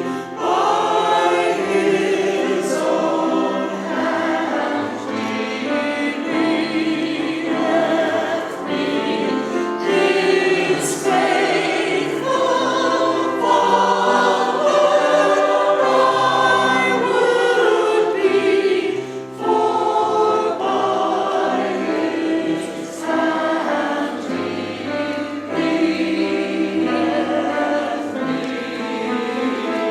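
Church choir singing.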